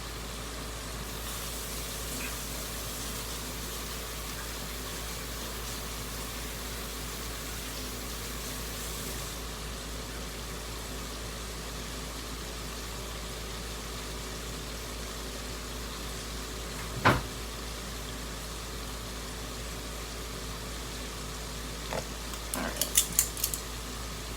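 Chicken wings frying in hot grease, a steady sizzle that is brighter for the first several seconds. One sharp knock of a utensil or pot about two-thirds of the way in, and a quick run of clinks near the end.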